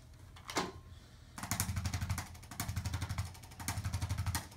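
Electric chiropractic adjusting instrument tapping rapidly against the back. It comes in three bursts of about a second each, starting about a second and a half in.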